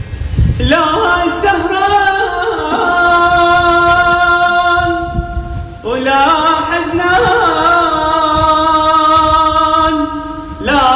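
A young man singing in Iraqi style, two long phrases of drawn-out, ornamented notes with a short break between them near the middle.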